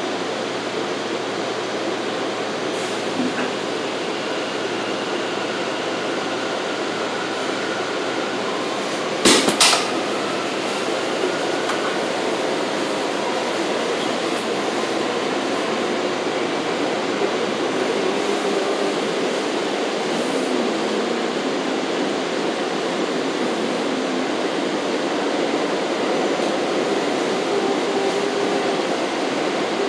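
R179 subway car running on elevated track, heard from inside the car: a steady rumble and rattle of wheels on rail. About nine seconds in there are two sharp knocks close together, the loudest sounds here.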